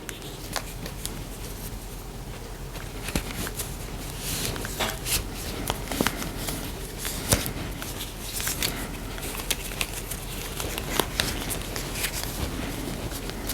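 Close handling of a plastic Barbie Made to Move doll and a pair of stretchy doll pants being worked onto it: soft fabric rustling with many small scattered clicks and taps.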